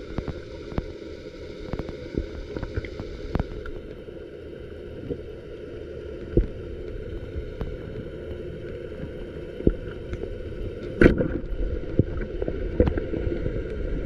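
Steady water sound around a small boat, with scattered sharp knocks and clicks, the loudest about six and eleven seconds in.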